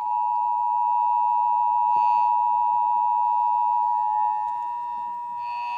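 Emergency Alert System two-tone attention signal over an FM radio broadcast: a loud, steady two-note tone held unbroken. It announces the emergency alert, a severe thunderstorm warning, that follows it.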